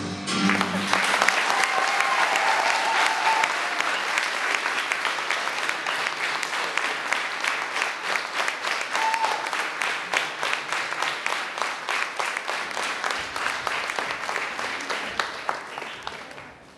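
Audience applauding at the end of a dance number, with the music cutting off at the very start. The clapping begins about half a second in and slowly dies away near the end.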